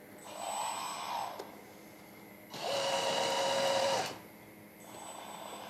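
Hydraulic pump of a 1/14-scale RC hydraulic excavator whining in three bursts as its functions are worked: a whine that rises and falls near the start, a louder steady whine of about a second and a half in the middle, and a fainter one near the end.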